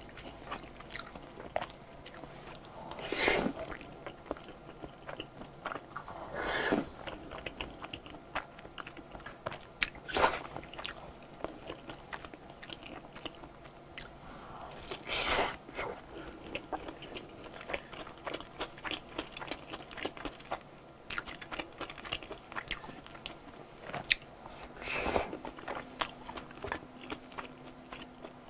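Close-miked eating sounds of creamy ribbon pasta and hamburg steak: steady wet chewing with many small mouth clicks. About five louder, longer mouth sounds are spaced several seconds apart.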